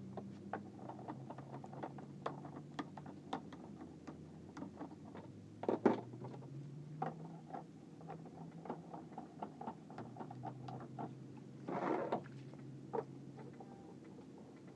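Handling noise of PVC pipe outrigger arms being slid into their plastic pipe fittings on a small boat: many small irregular clicks and knocks, with two louder scrapes about six and twelve seconds in. A low steady hum runs underneath.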